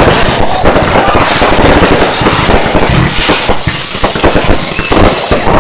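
Fireworks going off: loud, dense crackling and popping. In the second half a high whistle slides steadily down in pitch.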